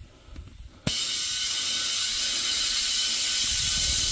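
Compressed air hissing steadily through an air chuck pushed onto a tire's valve stem, starting suddenly about a second in: inflating a freshly remounted tubeless tire to seat its bead.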